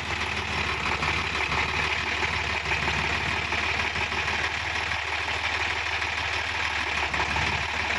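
Sonalika DI-50 RX tractor's diesel engine running steadily at a low, even speed, with no revving.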